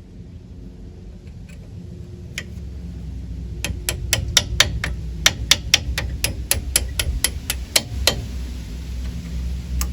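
Hammer tapping a punch or drift to drive a brake pad retaining pin out of a four-piston front brake caliper. A quick run of sharp metal-on-metal taps, about four a second, lasting some four seconds, with a single tap before it and another near the end.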